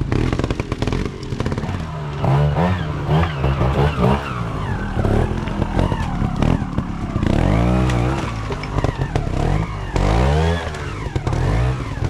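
Trials motorcycle engine under short throttle blips, the revs rising and falling again and again, with the biggest bursts about two, eight and ten seconds in.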